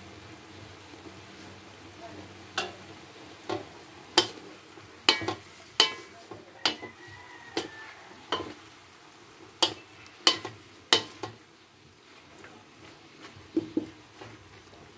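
Wooden spatula knocking and scraping against a metal wok while stirring chicken pieces, about a dozen sharp knocks that ease off near the end, over a faint steady sizzle of frying.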